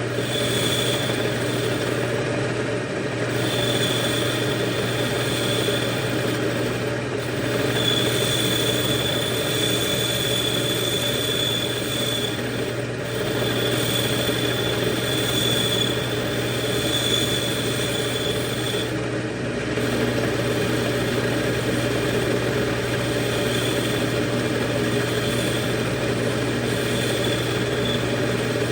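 Manual metal lathe running with a steady hum, joined by a thin high whine that comes in and breaks off several times.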